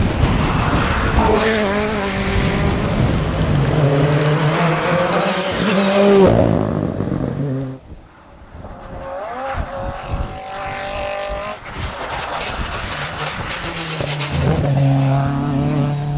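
Rally car engines at full throttle, rising and falling in pitch through gear changes. The sound cuts away sharply about eight seconds in, then another engine climbs in pitch and runs steadily at high revs.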